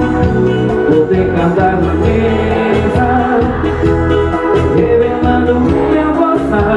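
Live band playing a dance song with a steady beat and strong bass, with singing.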